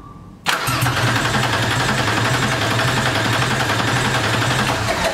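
Starter motor cranking a 3.2-litre VW VR6 engine on a stand, turning it over steadily without it catching. It cuts in suddenly about half a second in and stops near the end.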